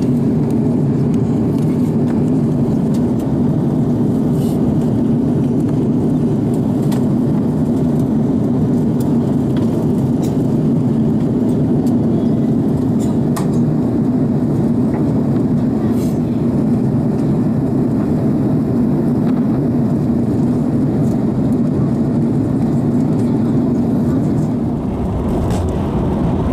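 Airliner cabin noise during descent: a steady low drone of the jet engines and rushing airflow heard from a window seat, dipping slightly near the end.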